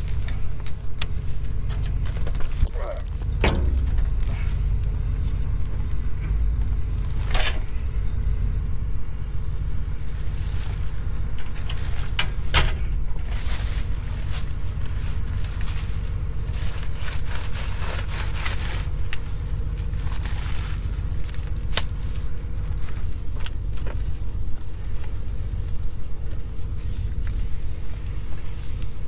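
Farm tractor running steadily while pulling a round baler through hay, with scattered clicks and knocks over the engine's low rumble.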